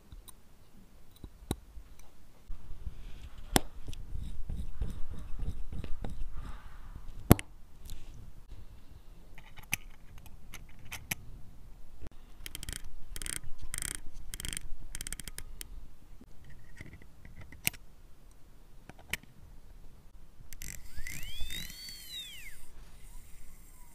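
Omega De Ville watch movement's keyless works clicking as the crown stem is pulled and pushed between its positions: single sharp clicks with a quick run of small clicks in the middle, over fingers handling the movement. Near the end there is a short squeak that rises and falls in pitch.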